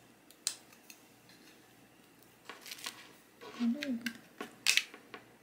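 A charging cable and plug being handled against a small plastic hub: a few sharp clicks and light rustles, with a short murmured voice about four seconds in.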